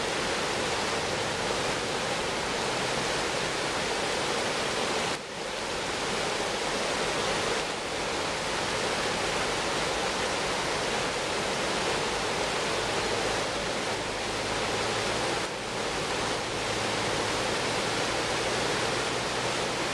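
River rapids: white water rushing steadily over rocks in a continuous roar, dipping briefly about five seconds in and again near fifteen seconds.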